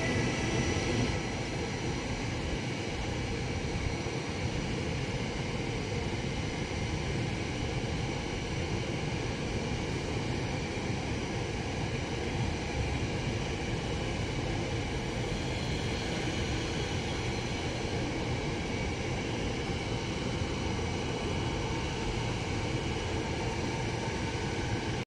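PKP Intercity passenger coaches rolling out along the platform, a steady rumble of wheels on rail in a large station hall. A faint squeal fades out about a second in.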